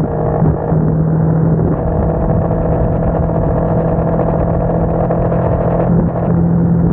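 Motorcycle engine running at a steady cruise while riding along a road, a constant engine note with brief dips in loudness about half a second in and again near the end.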